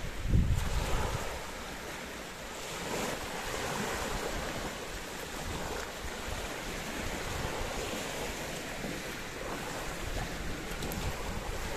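Small sea waves washing onto a shelly beach in the shallows, with wind buffeting the microphone in the first second.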